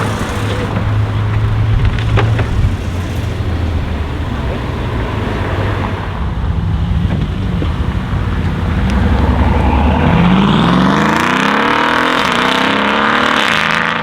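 Brabus B63S 730 (tuned Mercedes S63 AMG Coupe) twin-turbo V8 rumbling steadily at low revs. About ten seconds in it revs up and accelerates, the exhaust note rising in pitch more than once.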